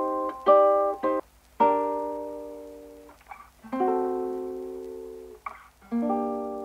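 Outro music: slow chords strummed on an acoustic plucked-string instrument, each left to ring out and fade before the next.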